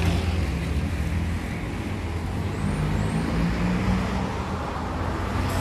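A car engine running steadily at idle, a continuous low hum, with road traffic noise.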